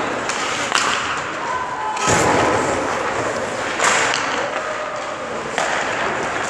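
Skate blades scraping on ice and the thud of goalie pads dropping onto the ice, in a few sudden bursts of scraping hiss with the arena echoing around them; the loudest scrape comes about two seconds in.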